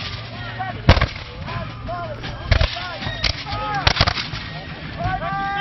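Scattered black-powder gunfire from a battle reenactment: a sharp shot about a second in, then single shots, and several in quick succession around four seconds in.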